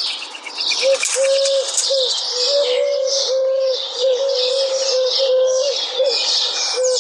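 A bird giving a quick, uneven series of short low hooting or cooing notes, over dense high-pitched chirping chatter.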